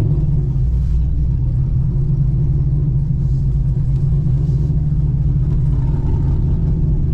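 The exhaust of a 2017 Camaro SS 1LE's 6.2-litre V8, fitted with an aftermarket Texas Speed camshaft, giving a steady, low, aggressive note while the car cruises at an even speed. There is no valvetrain ticking, because the dropped lifter has been repaired.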